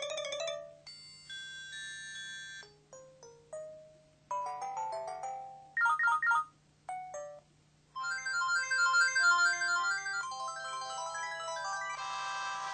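Motorola RAZR MS500 mobile phone playing its built-in electronic alert tones one after another: several short jingles and chimes of about a second each, with brief pauses between them. About eight seconds in, a longer ringtone melody starts and keeps going.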